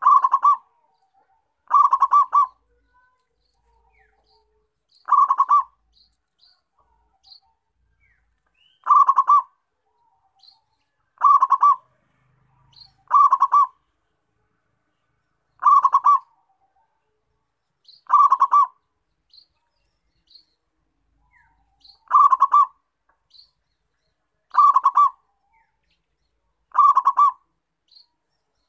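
Zebra dove (perkutut) cooing its short rolling song phrase over and over, about every two to three seconds. Faint high chirps sound between the phrases.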